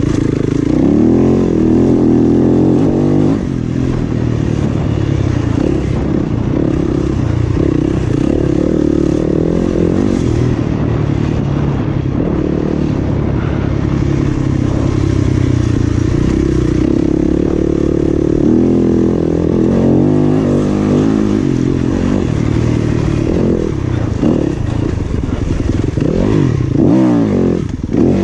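Dirt bike engine being ridden, its revs rising and falling over and over with the throttle.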